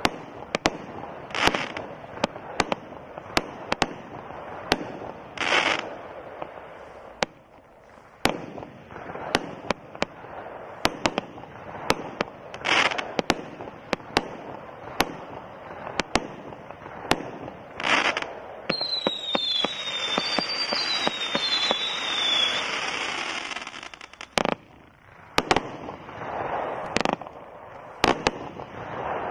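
OMG Fireworks' 'Cock Block' 70-shot consumer firework cake firing in quick succession: a string of sharp reports as shots launch and break, several followed by crackling. About two-thirds of the way through comes a few seconds of hissing with short whistling glides.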